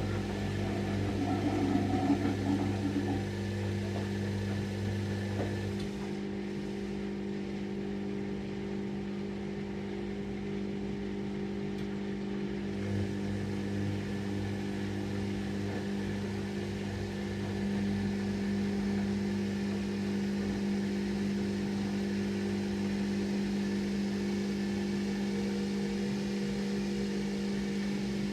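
Candy Aquamatic Aqua 1000 T washing machine running steadily with a motor hum. A lower hum drops out about six seconds in and returns about seven seconds later, and the sound grows a little louder about eighteen seconds in.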